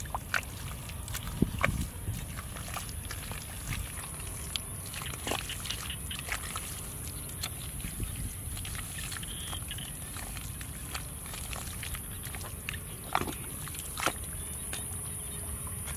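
Bare hands scooping and squelching through thick wet mud, with irregular wet clicks and slaps. There is a louder slap about a second and a half in and two more near the end as a foot presses into the mud.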